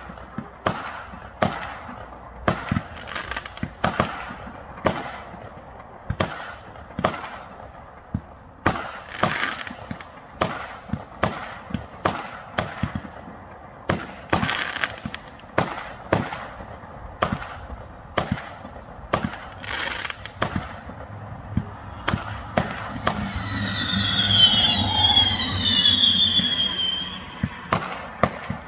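Fireworks going off, with sharp bangs one after another about once or twice a second. About three-quarters of the way through, a cluster of shrill whistling fireworks screams for several seconds over the bangs.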